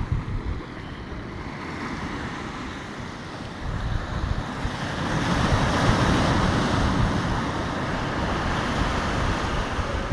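Sea waves washing against the rocks of a breakwater, with wind buffeting the microphone; the wash swells about four to five seconds in and then holds steady.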